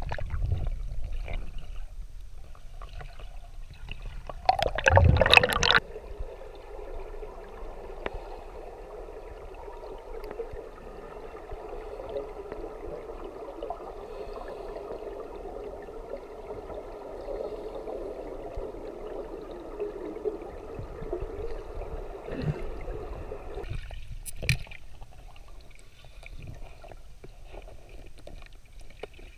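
Muffled underwater water noise picked up by a submerged GoPro: a steady rush with gurgling. There is a loud burst of noise about five seconds in, the rush cuts off abruptly near the end, and a sharp knock follows.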